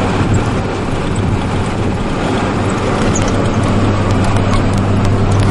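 Vehicle engine running steadily with a low hum, under tyre and road noise, heard from inside the cab while driving over a dirt bush track.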